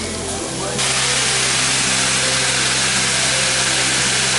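Teppanyaki griddle flaring up: about a second in, a loud, steady sizzling hiss starts suddenly as liquid from a squeeze bottle hits the hot vegetables and catches fire. Sustained background music tones sound underneath.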